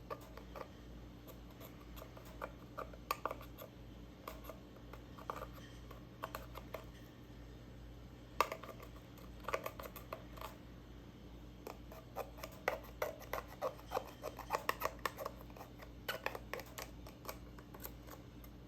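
Glittery slime being squished and poked by hand, giving irregular sticky clicks and small pops, thickest in a quick run about two-thirds of the way through.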